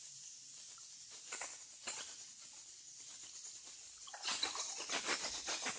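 Milk pouring into a stainless steel bowl of yeast and egg mixture while a wire whisk works in it: a few faint clicks at first, then from about four seconds in a quick run of clicking and splashing.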